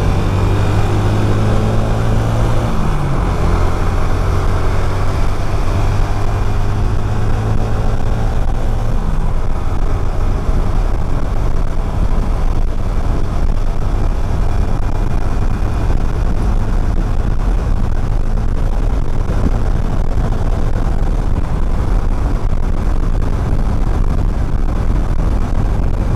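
Motorcycle ride heard from the rider's own microphone: a steady engine note for the first several seconds, then mostly loud rushing wind and road noise as the bike gets under way.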